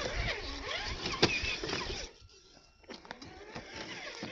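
Traxxas TRX-4 RC crawler's electric motor and gears whining, the pitch rising and falling with the throttle, with a few sharp clicks of the truck working over rough ground. About two seconds in, the sound drops away almost completely for nearly a second, then returns fainter.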